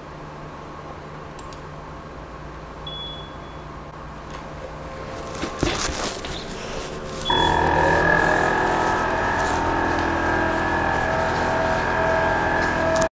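A short electronic beep, then a loud, steady whir with several high whining tones starts about seven seconds in: the laser cutter's exhaust and cooling fans spinning up as the cut job begins.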